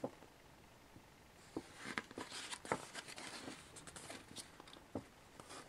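Faint rustling of glossy magazine pages being handled and turned by hand, with a few soft clicks and taps of paper.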